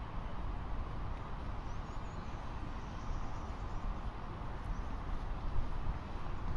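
Wind buffeting the microphone: an unsteady low rumble.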